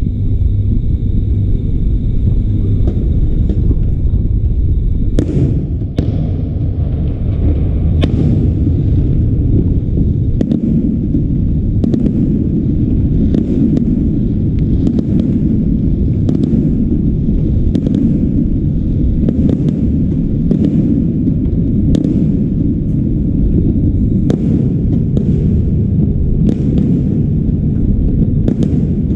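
Aerial firework shells bursting, a stream of sharp bangs about one a second over a continuous low rumble of overlapping booms.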